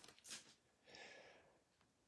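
Near silence: room tone, with a faint click about a third of a second in and a faint soft rustle about a second in.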